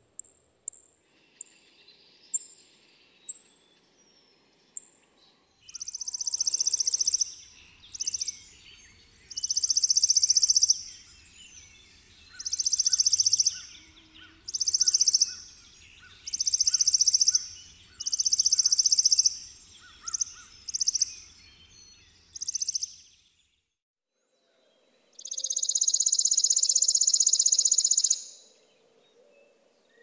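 Chipping sparrow calling and singing: a few sharp high chip notes at the start, spaced further apart as they fade, then a run of short rapid trills about every two seconds with other birds faint behind. After a short pause comes one long, dry, even trill of about three seconds.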